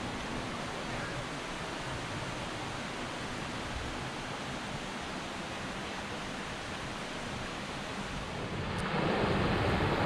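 Steady rushing of a rocky woodland stream, with a low rumble of wind on the microphone. It suddenly grows louder near the end as the cascading stream comes close.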